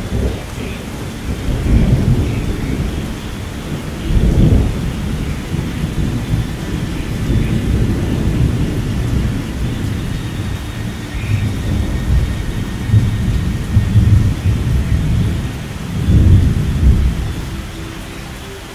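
Thunder rumbling over steady rain in several low rolls, the loudest about four and a half seconds in and again near the end.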